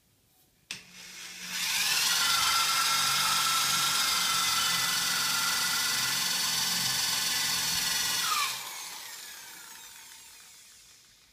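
Corded electric drill with a masonry bit boring into a stuck wine cork in the bottle neck. After a click about a second in, the motor spins up and runs with a steady high whine for about seven seconds, then drops in pitch and winds down to a stop.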